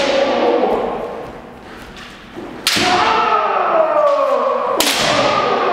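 Kendo sparring: two sharp cracks of bamboo shinai strikes, about halfway in and near the end, each followed by a long kiai shout that falls in pitch, echoing in a large hall. A shout from an earlier strike is dying away at the start.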